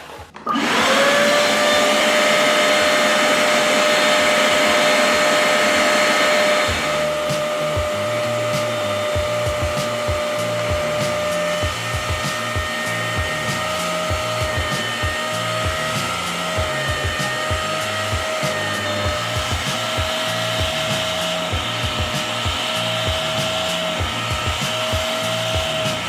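Hoover CleanSlate carpet and upholstery extractor switched on: its suction motor whines up to speed within the first second and runs steadily. From about seven seconds in it is worked over the carpet in strokes, with a rhythmic low rumble, and the motor's pitch dips and recovers about once a second as the nozzle draws in water and air.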